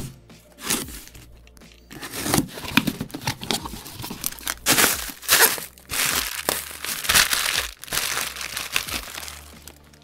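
Packaging being torn open and crumpled by hand: a quick run of crinkling, tearing rustles from about two seconds in until just before the end.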